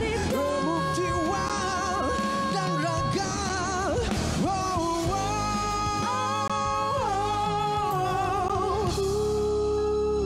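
A male and a female singer sing a duet with vibrato over backing music, ending on a long held note near the end.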